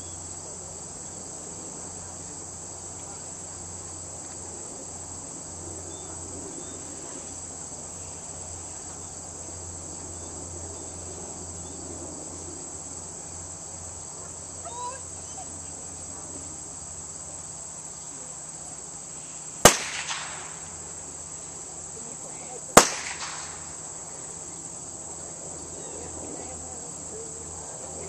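Insects chirring steadily, with two sharp gunshots about three seconds apart past the middle. These are blank pistol shots, the gunfire test fired during IPO obedience heelwork to check that the dog stays indifferent to the shots.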